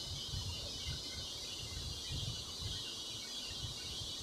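Faint room noise: a low, irregular rumble with a steady hiss over it, and no distinct sound standing out.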